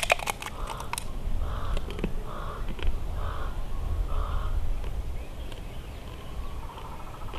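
A crow cawing repeatedly, about five caws spaced under a second apart, over a low steady rumble. In the first second a few sharp cracks as crab shell is bitten and cracked.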